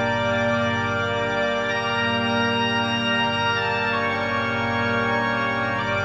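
Organ music of slow, sustained chords, each held for about two seconds before changing to the next.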